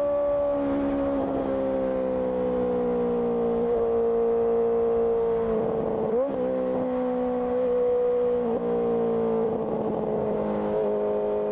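Honda CBR650R inline-four motorcycle engine through an IXIL IXRace aftermarket exhaust, running steadily while riding. Its note drifts slowly lower, with a quick dip and rise about six seconds in.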